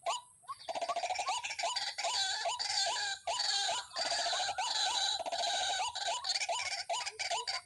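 White-breasted waterhen (dahuk) calls: a string of short, hooked notes repeated about three times a second. From about a second in they swell into a dense, harsher run of overlapping calls, then thin back to the single repeated notes near the end.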